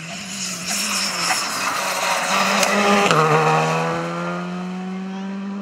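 Skoda Fabia R5 rally car's turbocharged four-cylinder engine running hard as the car approaches, passes at its loudest about three seconds in, and pulls away. The engine note drops as it goes by, then climbs again as it accelerates off.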